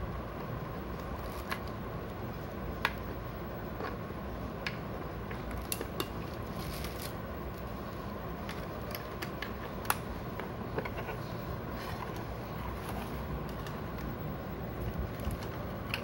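Scattered light plastic clicks and taps as batteries are pressed into a digital bathroom scale's battery compartment and its cover is fitted back on, over a steady low rumble. The sharpest clicks come about three seconds in and about ten seconds in.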